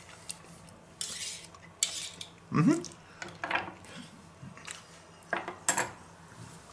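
Table knife, fork and spoon being picked up and laid down on a wooden cutting board beside a china plate: a handful of separate clinks and knocks, the loudest about two and a half seconds in.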